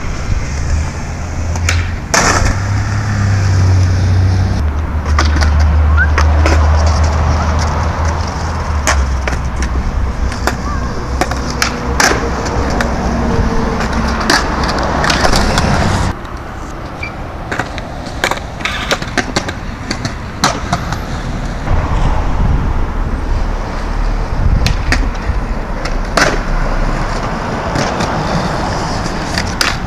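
Skateboard wheels rolling on concrete, with repeated sharp clacks of the board popping and landing during tricks. The rolling noise changes abruptly about halfway through.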